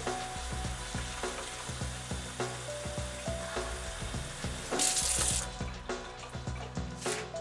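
Hot water running from a kitchen tap into a plastic bottle, a steady hiss that briefly gets louder about five seconds in. Background music with held notes plays underneath.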